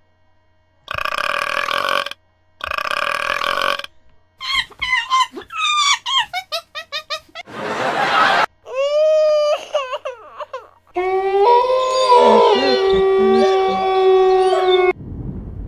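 A child making a run of vocal sound effects with the mouth: two held buzzy sounds, fast warbling, a short hiss, rising swoops, then a long held tone near the end.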